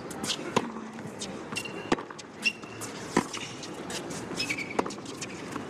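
Tennis rally on a hard court: four or five sharp racket-on-ball strikes about a second and a half apart, with brief shoe squeaks on the court between shots.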